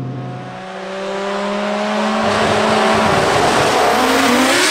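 Big-turbo Ford FG Falcon XR6 Turbo ute with a built 1300 hp Barra straight-six, accelerating hard toward and past. The engine note climbs steadily in pitch and grows louder as the car closes in, reaching its loudest as it passes near the end.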